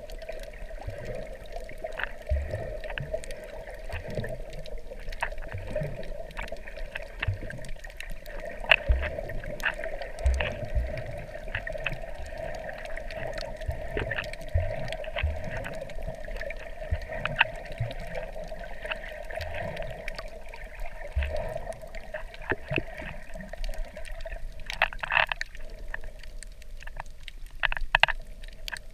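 Underwater sound of shallow reef water picked up by a camera in a waterproof housing: a muffled, steady wash with many scattered short clicks and frequent low thumps. There are a few louder bursts near the end.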